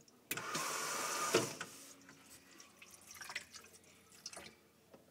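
Delta Touch2O kitchen faucet switching itself on: water suddenly runs for about a second, then cuts off with a click, the malfunction set off by pushing its supply hose up under the sink. Fainter scattered knocks and rustles follow.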